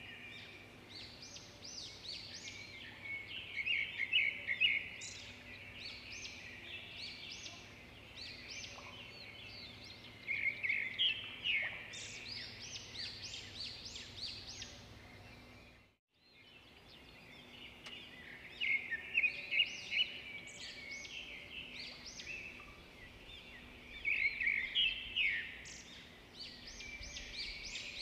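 Birds chirping and twittering in repeated bursts of quick, high calls over a faint steady hum. The sound cuts out for an instant around the middle and then starts again with the same pattern, like a looped nature ambience track.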